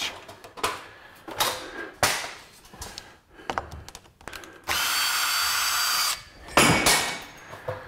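Cordless drill-driver backing screws out of a metal door hinge: a few short bursts, then a steady whining run of about a second and a half about five seconds in, followed shortly by a loud knock.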